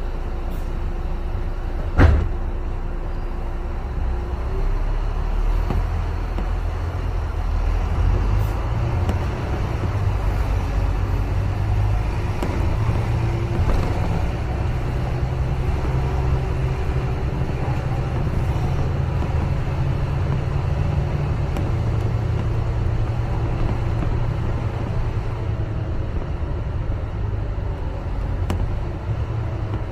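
Double-decker bus driving, heard from inside: a steady low engine drone and road rumble that shifts up and down in pitch as the bus pulls and eases off. A single sharp knock comes about two seconds in.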